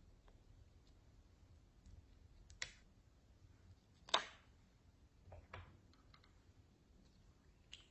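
A few short, sharp clicks or taps over a quiet room. The loudest comes about four seconds in, with smaller ones a second or so before and after.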